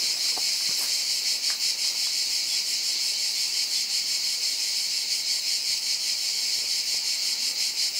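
Cicadas buzzing steadily in a high, shimmering drone that does not let up.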